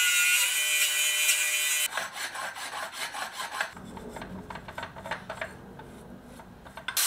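A cordless angle grinder's cutting wheel cuts into the edge of a metal starter housing for about two seconds and then stops sharply. Quieter rasping file strokes on the metal follow, clearing the last millimetres of clearance, and the grinder starts again right at the end.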